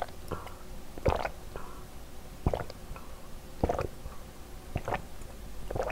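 A person gulping a drink, swallow after swallow, about one a second, heard close up.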